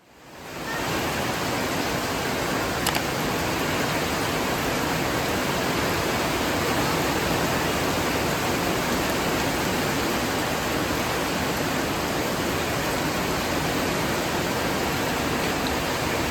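Heavy rain falling, a steady dense hiss that fades in at the start, with a single small click about three seconds in.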